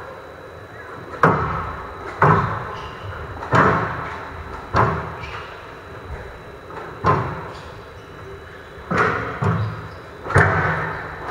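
Squash rally: a hard rubber squash ball struck by rackets and smacking off the court walls. About eight sharp cracks come at irregular intervals of one to two seconds, each ringing briefly in the hall.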